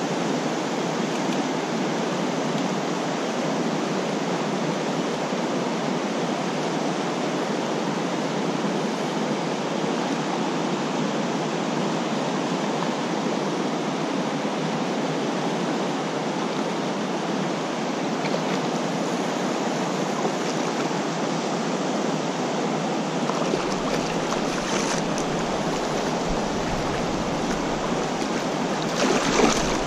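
Fast-flowing river current rushing and burbling steadily over a rocky bed, heard close up from mid-stream. A short, louder burst of noise comes near the end.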